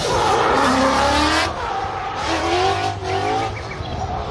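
Ford Mustang drift car revving up and down while its tyres squeal and skid in a smoky slide. The tyre noise is heaviest over the first second and a half.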